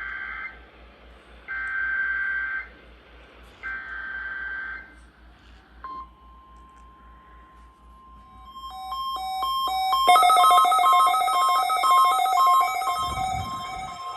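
Three NOAA Weather Radio SAME data header bursts, each a warbling digital screech about a second long with a second's gap between, marking the start of a Required Monthly Test. About six seconds in, the steady single-pitch weather radio alert tone begins, and from about nine seconds weather radio receivers set off their alarm beeping, which grows to the loudest part.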